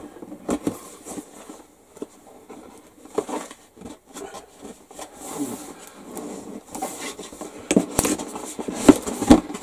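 Lid of a large cardboard plastic-model kit box being worked loose and pulled off: scraping and rubbing of cardboard with small knocks, getting busier and louder near the end.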